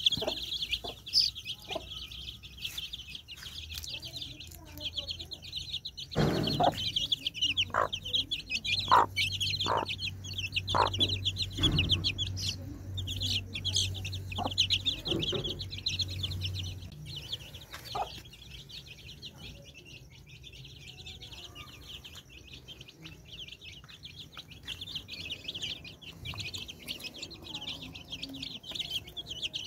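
A brood of young chicks peeping continuously in a dense, high-pitched chorus, with a mother hen giving short clucks now and then in the first half.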